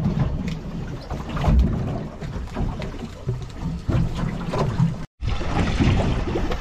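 Wind rumbling on the microphone and choppy water slapping against a small boat's hull, with scattered knocks. The sound cuts out for an instant about five seconds in.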